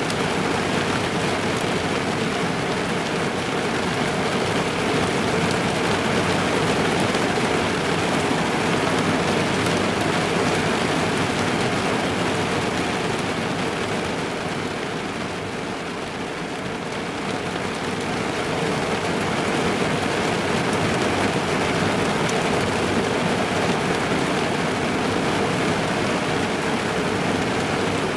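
Steady rain falling on a car, heard from inside the cabin as a dense patter on the roof and windows. It eases slightly for a moment about halfway, then comes back.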